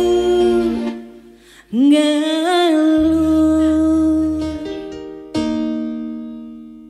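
Live pop song from a woman singer with electronic keyboard backing: long sustained notes, with a swooping rise into a held note about two seconds in. The music fades and then cuts off abruptly at the very end.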